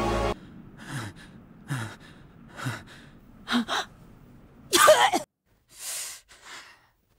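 Heavy, ragged panting of a worn-out, injured anime character: breaths about once a second, some with a short falling groan, and a louder strained gasp about five seconds in.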